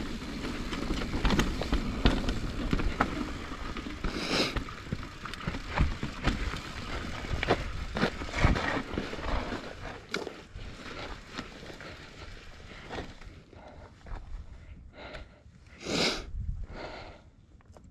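Mountain bike rolling over a rough trail: rumbling tyre noise with frequent clatters and knocks, easing off about ten seconds in as the bike slows. The last few seconds are quieter, with scattered small knocks and one short loud rush of noise near the end.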